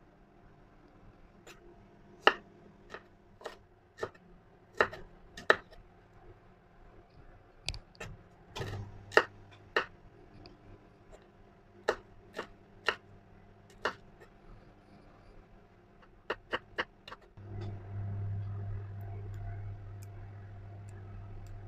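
Chef's knife striking a wooden cutting board in single, irregular chops while slicing shallots and chilies, about twenty strikes in all. Under it runs a low steady hum, louder over the last few seconds, from the microwave oven cooking the chicken.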